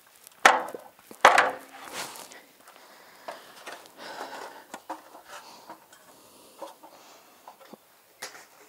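A stepladder being set in place and climbed: two sharp knocks soon after the start, then soft scraping and light clatter of feet on the rungs.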